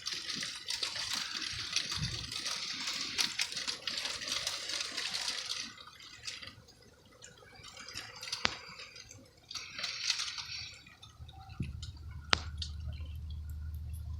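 Wet snowstorm precipitation pattering and dripping, with scattered sharp drips and ticks; the hiss is strongest for the first half and then drops away. A low steady hum comes in near the end.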